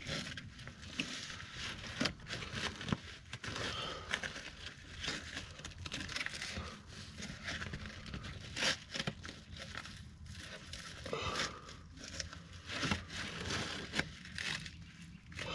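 Irregular crinkling, rustling and small clicks of an exhaust repair bandage being handled and wrapped around the exhaust pipe by hand.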